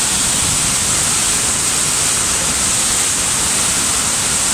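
Water released from a dam gushing through a concrete outlet channel as churning white water: a loud, steady rushing noise.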